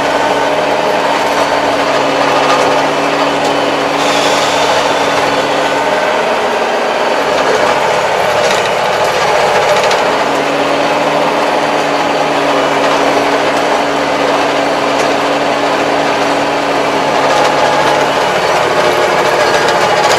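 Kubota 75-horsepower tractor's diesel engine running steadily under load, heard from inside the cab while it pulls a rotary implement through the field; its note shifts a little a few times.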